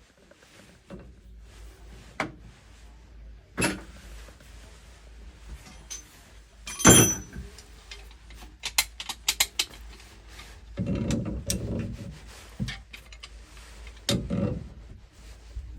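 Metal hand tools and shower valve parts being handled: scattered clinks and knocks, a sharp clank about seven seconds in, a quick run of clicks a couple of seconds later, and rough scraping twice near the end.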